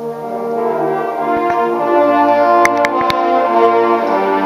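A large trombone ensemble playing sustained chords that swell louder over the first two seconds, with a change of chord near the end. A few sharp clicks sound in the middle.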